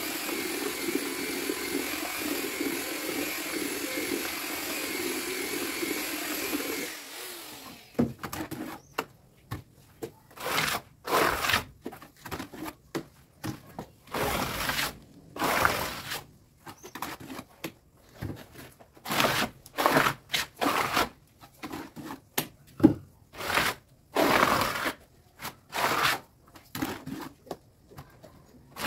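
Electric drill with a mixing paddle stirring mortar mixed with fine gravel, running at a steady whine, then cutting off about seven seconds in. After that come irregular scraping strokes of a tool working the mortar, one or two a second with short pauses between.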